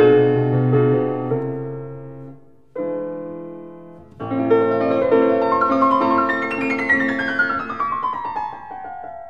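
Background piano music: chords ring and die away, then a new passage begins with a run of notes stepping downward.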